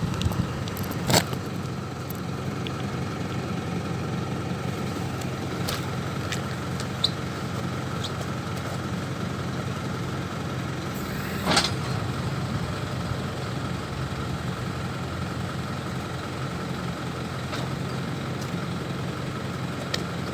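Diesel engine of an Isuzu NQR 7.5-ton truck idling steadily, with a steady whine above the engine note, while a freshly TIG-welded hydraulic hose is tested. Two sharp clicks or knocks stand out, about a second in and about halfway through.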